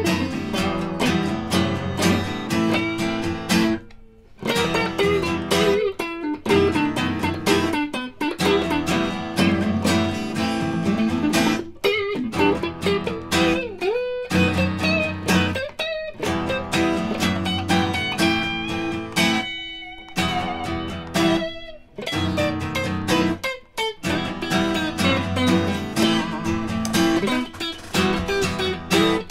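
Instrumental guitar tune played live, an electric guitar picking melody lines and chords. The playing stops dead for a moment many times, roughly every two seconds.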